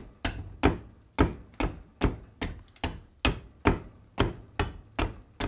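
Hand axe chopping into a green black walnut branch stood on end on a stump chopping block: a steady run of sharp chops, about two and a half a second, shearing wood off the ladle blank.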